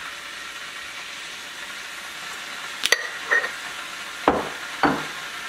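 Gooseneck kettle heating toward the boil with a steady hiss, and about four light knocks and clinks in the second half as items are set down around a treat plate.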